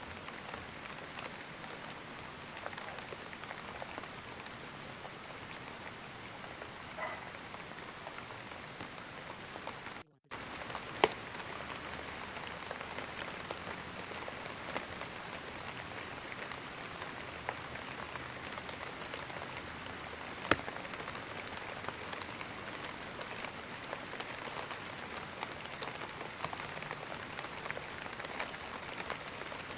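Steady rain falling, with many small drop ticks and a couple of sharper, louder drop hits. The sound cuts out for a moment about ten seconds in.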